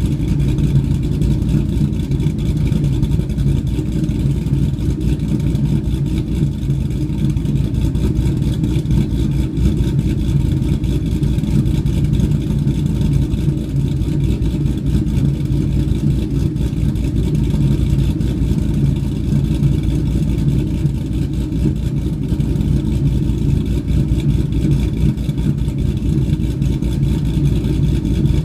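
2013 Shelby GT500's supercharged 5.8-litre V8 idling steadily on aftermarket L&M NSR camshafts, heard at the quad exhaust tips. The exhaust runs through ARH long-tube headers with no catalytic converters and the stock mufflers.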